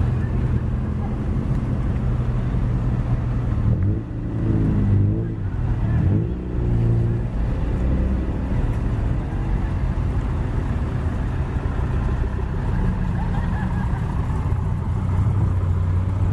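A car engine running at low revs, a steady low drone, with a brief rise and fall in pitch about four to six seconds in.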